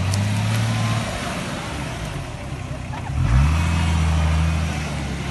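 Lifted Nissan Patrol off-roader's engine revved under load while climbing: it is held high for about a second, eases off, then is throttled up sharply again about three seconds in and held before dropping back.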